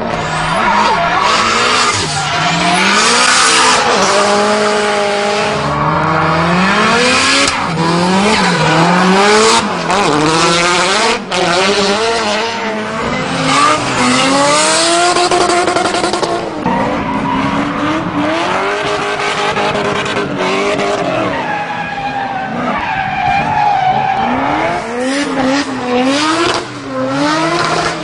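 Racing car engine revving up and down over and over, its pitch climbing and falling in quick sweeps, with tyre squeals, a race-car sound laid over a power wheelchair's runs.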